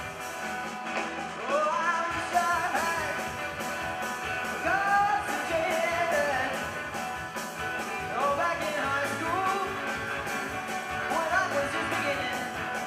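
Live band playing a song with a steady beat. The band is acoustic guitar, piano accordion, keyboard, double bass and drum kit, with sung phrases over it.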